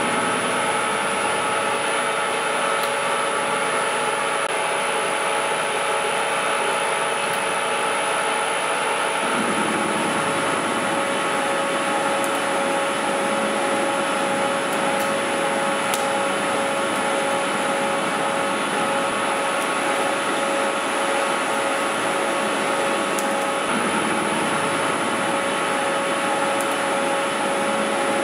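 Metal lathe running under power feed, turning down a weld-built-up carbon steel shaft: a steady machine whine with constant tones over an even noise. The lower part of the sound shifts about nine seconds in.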